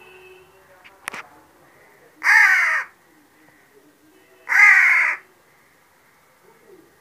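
A crow cawing twice, two harsh calls of about half a second each, a couple of seconds apart. A short click comes about a second in.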